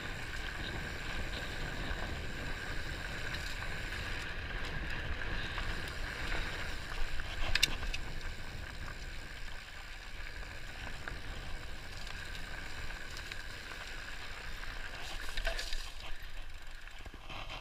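Mountain bike descending a dirt singletrack: tyres rolling and rattling over the trail, with wind rumble on the bike-mounted camera's microphone. There is one sharp knock about seven and a half seconds in.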